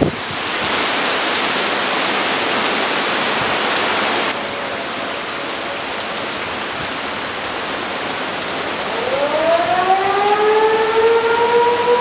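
A steady rush of storm rain and wind. About two-thirds of the way in, an outdoor tornado warning siren winds up, its pitch rising and then levelling off into a steady wail.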